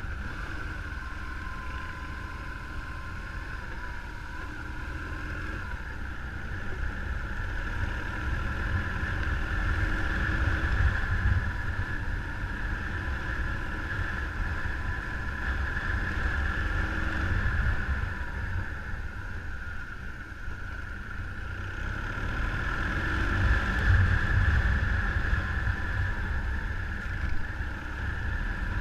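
Motorcycle engine running while riding, under heavy wind rumble on the microphone, swelling louder twice.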